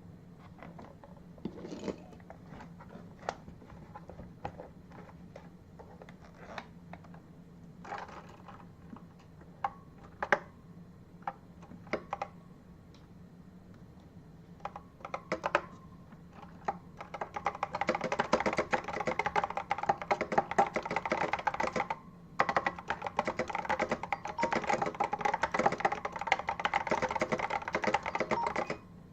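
Apple M0110 keyboard with ALPS switches being typed on: scattered single keystrokes at first, then fast, continuous typing for the second half with a brief pause partway through.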